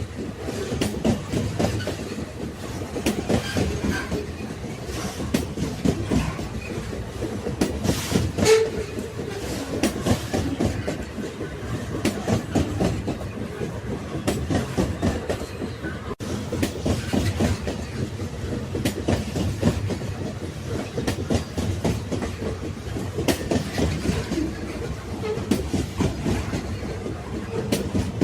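Railway carriages rolling along the track: a continuous clickety-clack of wheels over rail joints with irregular knocks and rattles, and one louder jolt about eight seconds in.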